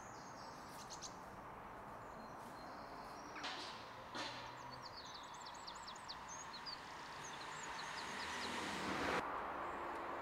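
Outdoor ambience: a small bird chirping in a quick series of short, high notes over a steady background hiss, with two brief knocks a little before the chirps start.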